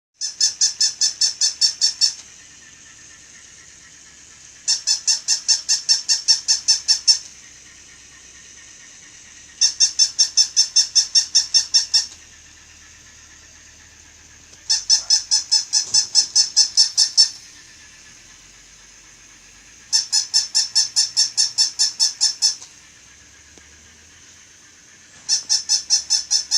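Toy dog making high-pitched yapping: bursts of rapid yips, about seven a second, each burst lasting roughly two and a half seconds and repeating every five seconds or so, six times.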